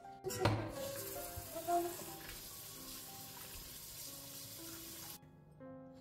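Slow piano background music, with a steady hiss under it that starts sharply about half a second in and cuts off abruptly about five seconds in.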